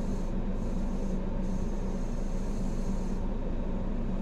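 Steady low mechanical hum over an even rumble and hiss, holding the same level with no breaks.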